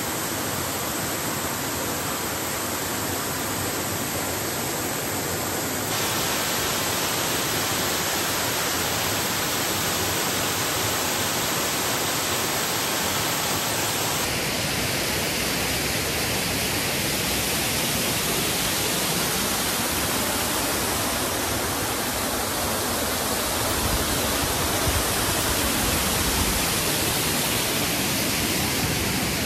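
Waterfall's falling water making a steady, even rush of noise, its colour shifting a little about 6 and 14 seconds in.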